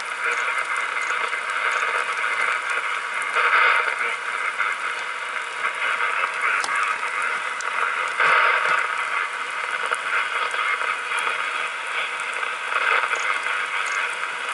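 Radio receiver putting out steady static hiss with no transmission coming through, with occasional faint crackles and a few louder swells of noise about three and a half, eight and thirteen seconds in.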